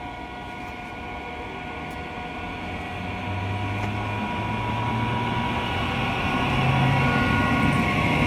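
MEMU electric multiple-unit train approaching and running past close by, growing steadily louder. A steady high hum carries on throughout, under a low running rumble that rises in pitch as the train comes alongside.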